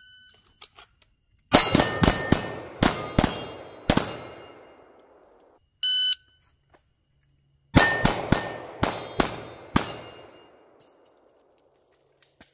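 Rapid semi-automatic pistol fire at close range in two strings of quick doubles and triples, each lasting about two and a half seconds, with steel targets ringing after the hits. A short electronic shot-timer beep sounds between the strings, about six seconds in.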